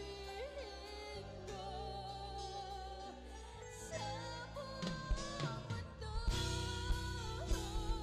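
Mixed church choir singing a Tagalog worship song in long held lines with band accompaniment; drum hits come in more strongly about six seconds in.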